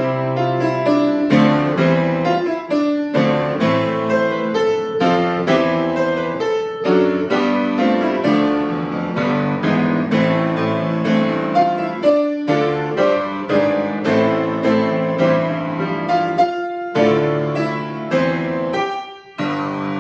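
Solo piano playing a hymn tune in full chords, with brief pauses between phrases about twelve and sixteen seconds in.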